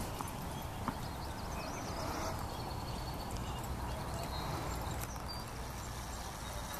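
Outdoor ambience: a steady low rumble with faint, short high tones scattered through it and a soft click about a second in.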